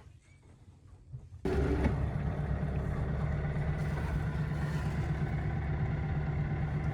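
Sailboat's inboard engine running at a steady speed, coming in abruptly about a second and a half in after a quiet stretch.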